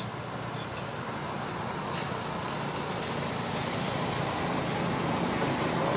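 Steady rumble of motor traffic, slowly growing louder, with a few faint soft rustles.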